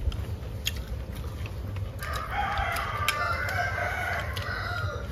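Rooster crowing: one long crow that starts about two seconds in and lasts about three seconds.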